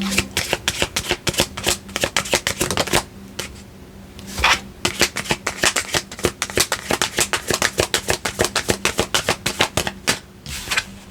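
A deck of cards being shuffled by hand: quick runs of card snaps, a short pause about three seconds in with a soft thump, then another long run of rapid snaps.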